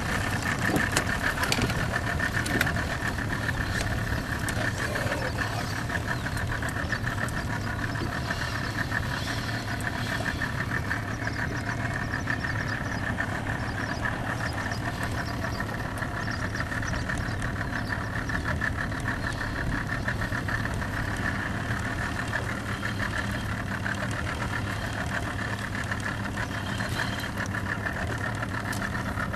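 A 90-horsepower outboard motor running steadily at trolling speed, a constant low hum with a fast, even pulse.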